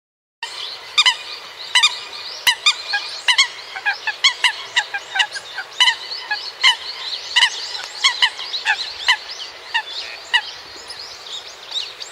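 A flock of coots giving short, repeated honking calls that overlap one another in a dense, continuous chorus. The calls start about half a second in.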